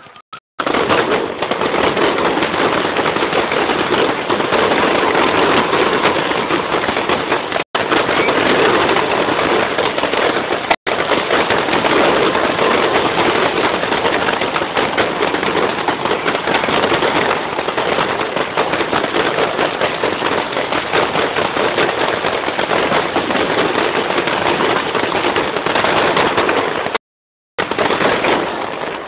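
Fireworks display: a dense, unbroken barrage of shells bursting in rapid bangs and crackles. The sound cuts out briefly a few times.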